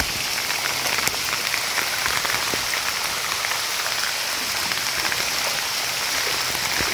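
Heavy storm rain pouring down: a steady, even hiss sprinkled with small drop ticks.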